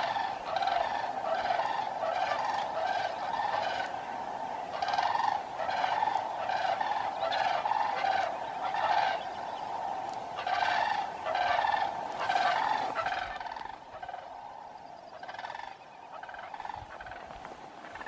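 Sandhill cranes calling: a long series of loud calls, about two a second, dying down about 13 seconds in, with a few fainter calls after.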